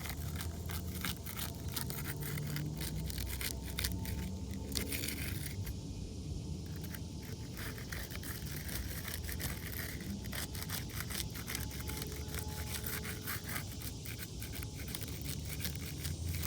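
Weathered asphalt three-tab shingle tabs being pried and scraped apart at their seal strips, with an irregular run of small crackles and scrapes as the brittle shingle and its loose granules rub and break. A low steady rumble sits underneath.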